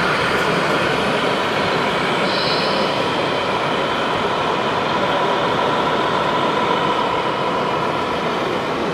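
Steady, unbroken din of a busy exhibition hall, with no single clear event standing out.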